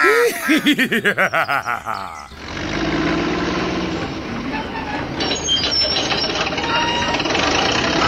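A rapid laughing voice for about the first two seconds, then a steady engine-like machine sound as a toy tracked excavator drives across sand.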